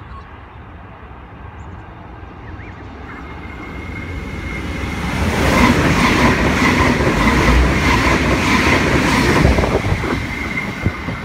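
Passenger train growing louder as it approaches, then passing close by, its wheels clacking over the rail joints about twice a second under a steady high whine.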